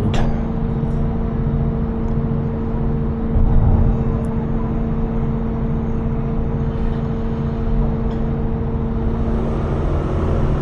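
Engine running at a steady speed: a constant low hum over a rumble, with a brief louder rumble about three and a half seconds in.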